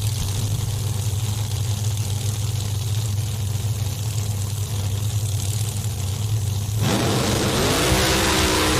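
Pro Modified drag car engines idling steadily while staging, then about seven seconds in a sudden launch to full throttle, the engines' pitch rising as the cars accelerate away.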